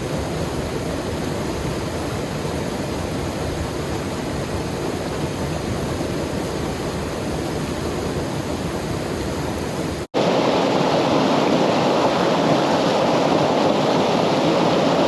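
Waterfall rushing steadily into a rock pool. About ten seconds in, the sound cuts out for an instant and returns louder and fuller.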